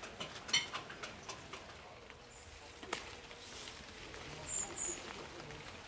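Outdoor garden ambience with a few sharp clicks and rustles, in step with plants being handled, and a small bird giving two short high chirps near the end.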